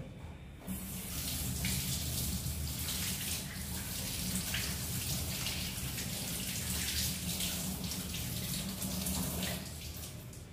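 Kitchen tap turned on about a second in, water running into a stainless-steel sink as hands are rubbed and rinsed under the stream, then turned off near the end.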